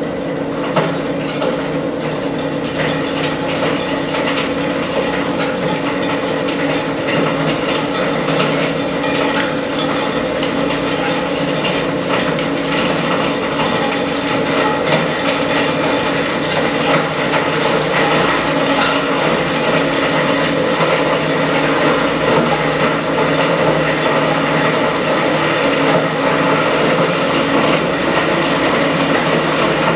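SEM Model 2-SSD solid-state media disintegrator and its filtration system running under load while USB thumb drives are fed in and cut: a steady mechanical hum with many small clicks and rattles from the drives being shredded in the cutting chamber.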